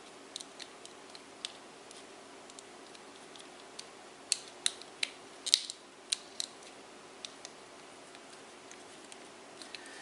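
Hard plastic clicking and snapping as fingers work a glued speed-control knob loose from a small electric fan's plastic housing. Light scattered clicks at first, then a run of louder sharp clicks about four to six and a half seconds in.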